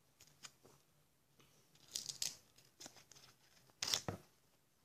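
Scissors cutting into packaging: a few short, sharp snipping and tearing sounds, the loudest about four seconds in.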